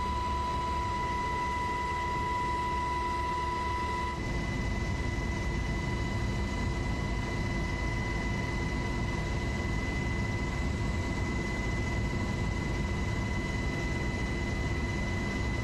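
Steady aircraft cabin noise in flight: a low engine rumble with a steady high whine. The tone shifts about four seconds in, the whine easing and the rumble growing.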